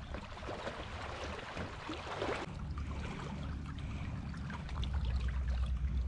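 Shallow sea water lapping and trickling at the shore, with a low wind rumble on the microphone that grows stronger near the end.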